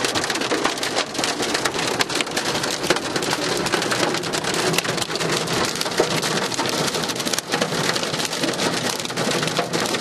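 Hail drumming on a car's windshield and body, heard from inside the cabin: a dense, steady clatter of countless sharp ticks.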